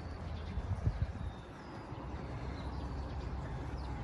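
Outdoor ambience: a steady low rumble, with a few faint, short bird chirps.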